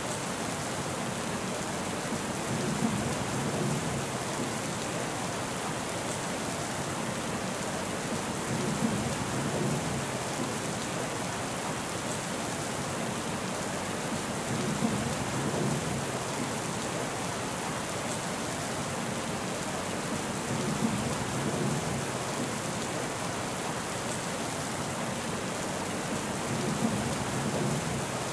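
Steady rain falling, with a short low rumble of thunder five times, about every six seconds, each starting sharply.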